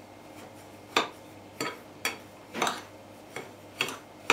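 A spoon clinking and scraping against a ceramic bowl while stirring a dry mix of flour, semolina, sugar and soda: a series of sharp clinks, about two a second, starting about a second in.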